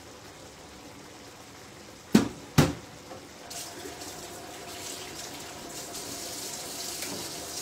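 Two sharp knocks about half a second apart, then a kitchen tap starts running water steadily into the sink.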